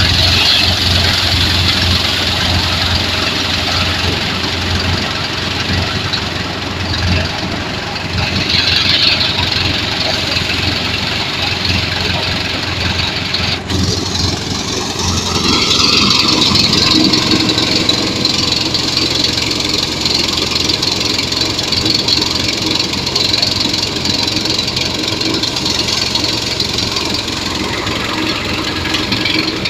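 Rice threshing machine running on its engine, with a steady loud mechanical clatter. About halfway through, a sharp click is followed by a change in the sound.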